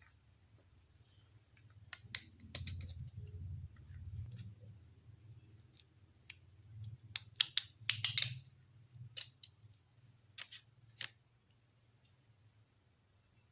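Irregular sharp clicks and light taps from hand work on small parts, with a quick cluster of clicks about seven to eight seconds in and a low hum underneath; the clicks stop about two seconds before the end.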